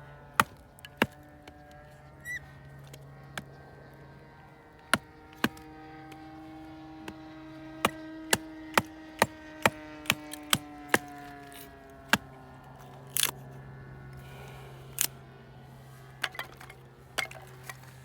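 Hatchet striking and splitting firewood: a series of sharp wooden knocks and cracks, irregular at first, then about two a second in the middle.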